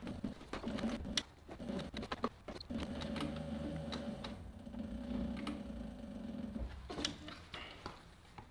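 Cobra Class 3 industrial leather sewing machine stitching a vegetable-tanned leather strap onto a heavy leather gun belt: a few short bursts of stitches, then a steady run of stitching for about four seconds that stops about seven seconds in, followed by a few light clicks.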